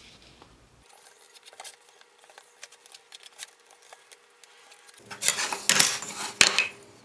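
Small clicks and taps of a protractor square and pencil against a wooden board. About five seconds in comes a louder clatter and scrape as the protractor is set aside and the board is shifted across the bench.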